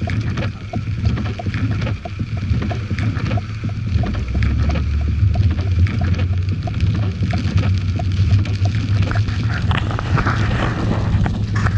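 In-cabin sound of a Mercedes-Benz CLK 430 driving on a rain-soaked road: a steady low hum from its 4.3-litre V8 and tyres, with tyre hiss on wet pavement and rain on the car. A faint, regular ticking runs through most of it.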